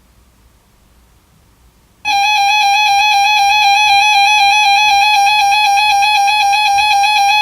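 Faint hiss, then about two seconds in a loud, steady, buzzy electronic tone starts abruptly and holds, with a slight pulsing.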